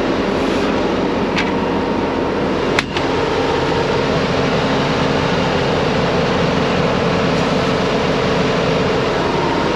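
Steady machinery drone with a constant hum, and a single sharp metallic click about three seconds in as a cargo load bar is set against the trailer ceiling.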